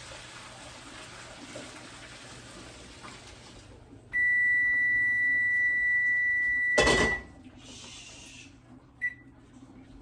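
Faint running water, then a loud steady electronic beep from a kitchen appliance lasting nearly three seconds, cut off by a clatter, and a short blip of the same beep about two seconds later.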